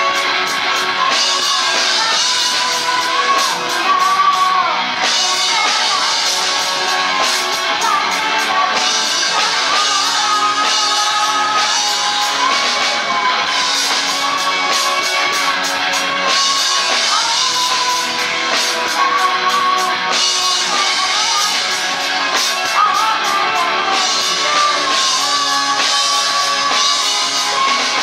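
Live rock band playing: a singer's voice over electric guitar, bass guitar and drum kit.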